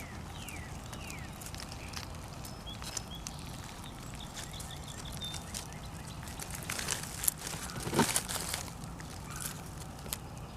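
Digging and rustling through a compost pile of leaves and scraps, with a cluster of louder crunching scrapes about three-quarters of the way through. Birds chirp in the background.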